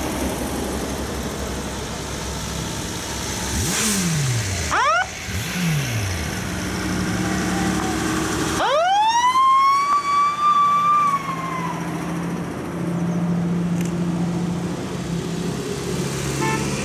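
Old fire engine's siren: two short whoops about four seconds in, then about nine seconds in it winds up to a high steady wail, holds it for a couple of seconds and winds down. The engines of passing vehicles run underneath.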